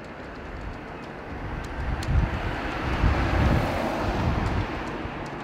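A car driving past on the street. Its engine and tyre noise swells over a couple of seconds to a peak around the middle, then fades away.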